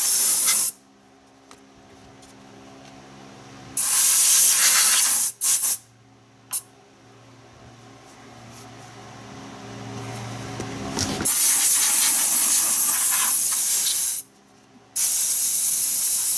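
Compressed-air blow gun hissing in several long blasts of a few seconds each, with a couple of short puffs between, blowing loose grime off a transmission pan. A low steady hum runs in the quieter gaps between blasts.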